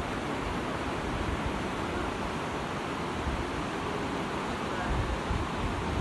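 Steady rushing outdoor noise, with gusts of wind buffeting the microphone toward the end.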